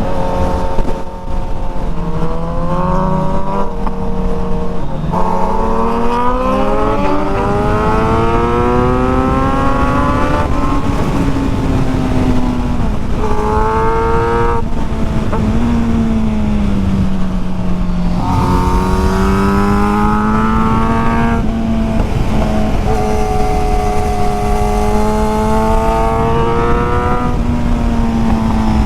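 Sport motorcycle engine under way on a twisty road, its revs climbing under acceleration and falling back several times, over steady wind and road rush.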